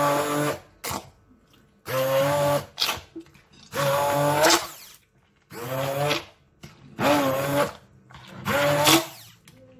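Hand-held immersion (stick) blender run in short pulses: about six bursts of roughly a second each, every one rising in pitch as the motor spins up, while it blends a thick cottage-cheese, egg and sugar mixture in a bowl.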